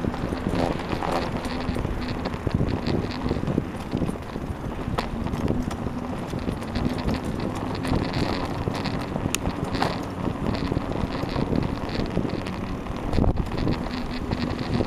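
Wind buffeting the microphone of a camera riding on a moving bicycle, with frequent small rattles and clicks from the bike as it rolls over the road.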